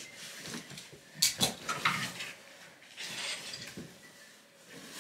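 Two sharp knocks a little over a second in, followed by light clatter and a few smaller knocks, typical of things being handled and set down in a small room.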